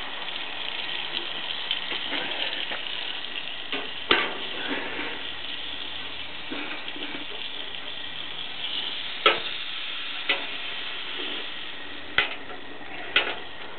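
Small wood fire crackling with a steady hiss, with several sharp pops.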